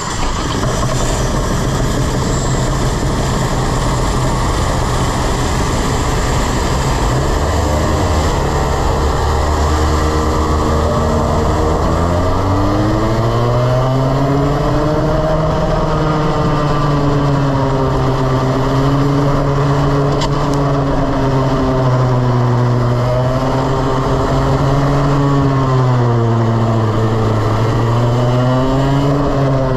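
Two-stroke TaG racing kart engine heard on board, running loudly. It holds a fairly steady pitch for the first twelve seconds or so, then rises and falls in pitch again and again as the kart accelerates out of corners and backs off into them.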